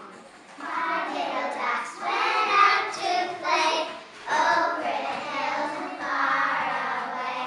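A class of kindergarten children singing together, in short phrases with brief breaks between them.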